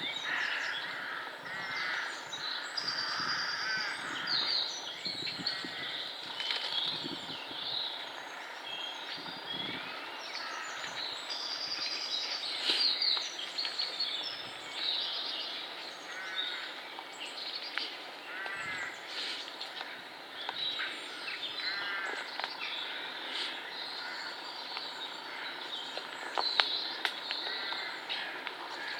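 Several birds singing and calling at once, with song phrases and chirps overlapping throughout, over a steady background noise.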